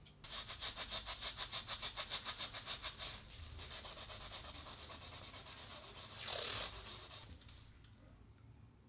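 An abrasive pad is rubbed quickly back and forth over the steel iron of a Stanley 75 bullnose plane by hand, about six strokes a second, to clean off rust. The rubbing then goes on more steadily, with a brief louder stretch, and fades out.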